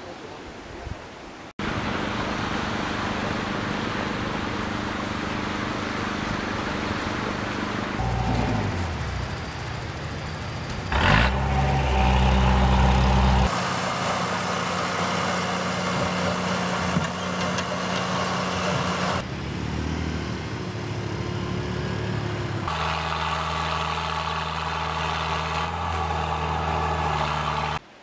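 Heavy machinery diesel engines, a crawler bulldozer among them, running under load in a series of cut-together shots; the engine note changes abruptly at each cut. About eleven seconds in an engine revs up and is at its loudest for a couple of seconds.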